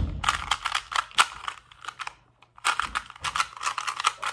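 2x2 Rubik's cube being scrambled: rapid clicking of its plastic layers turning, in two runs with a short pause in the middle.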